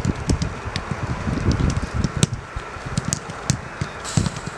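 Footballs being kicked on a grass pitch during a passing drill: short sharp thuds at irregular moments, over a steady low rumble.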